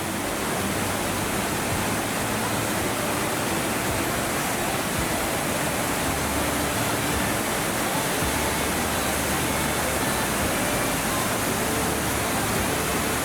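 Mountain waterfall rushing: the steady, unbroken sound of falling water.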